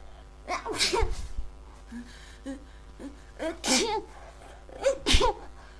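A woman sneezing three times in a row, the sneezes coming about a second and a half apart. Each starts with a rising breathy catch that snaps into a sharp sneeze, with small breaths between them, as part of a sneezing fit.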